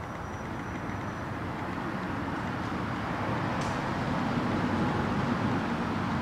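Steady outdoor background noise of road traffic, growing slightly louder over the few seconds.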